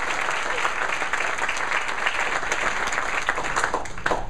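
Audience applauding, a dense round of clapping that thins to a few last claps and stops near the end.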